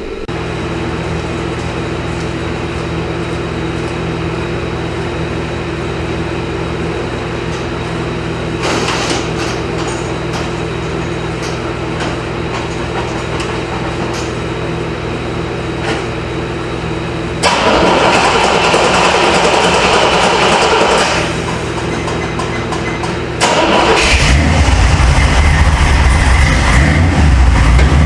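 A 1977 Corvette's L82 350 V8 engine runs steadily at idle, with a couple of louder spells. About four seconds before the end it becomes much louder and deeper.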